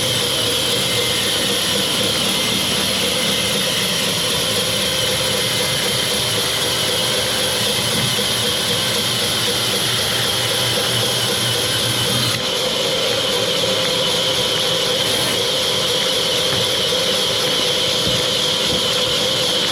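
Sawmill machinery running with a steady, loud mechanical drone and high whine, changing slightly about two-thirds of the way through.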